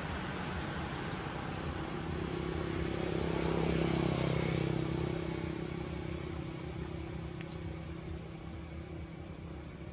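Engine of a passing motor vehicle: a steady low hum that swells to its loudest about four seconds in, then slowly fades.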